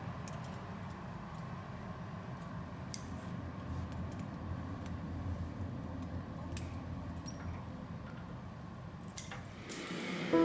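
Steady low roar of a glassblowing studio's furnace burners, with a few sharp metallic clicks of hand tools.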